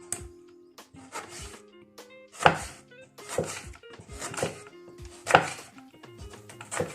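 Kitchen knife cutting a lemon into small pieces, a series of separate cuts with the sharpest about two and a half and five and a half seconds in, over background music.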